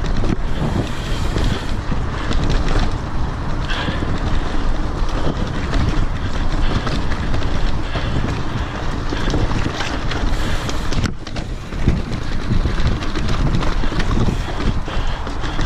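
Wind buffeting the handlebar-mounted camera's microphone while a mountain bike rides fast down a rough dirt trail, with tyres rumbling and the bike rattling over bumps. A brief lull about eleven seconds in.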